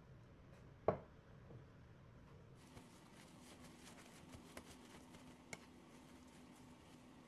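Faint rustling and patting of a paper towel as hands blot raw chicken breasts dry on a plate, with one sharp knock about a second in and a few soft clicks.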